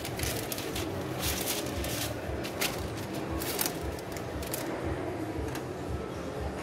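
Paper lining a box of chocolates rustling and crinkling in short, irregular bursts as gloved hands fold it back and handle the pieces, over a steady low hum.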